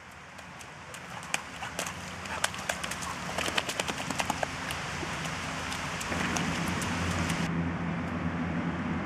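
Dogs playing with a stick in wet mud: a quick run of sharp clicks and knocks from paws and the stick. About six seconds in, a steady low hum like distant traffic takes over.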